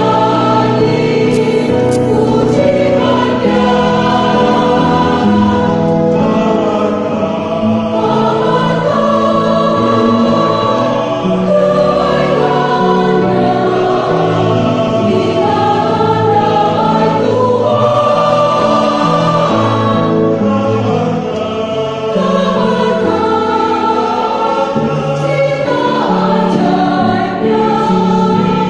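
A church choir, mostly women's voices with a few men, singing a hymn together in harmony, with held notes.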